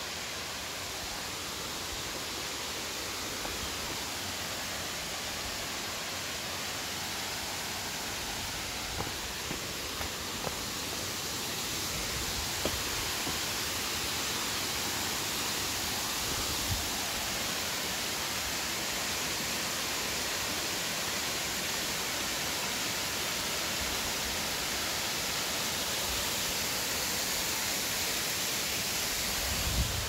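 Waterfall running with little water: a steady rush of falling, splashing water that grows a little louder about a third of the way in.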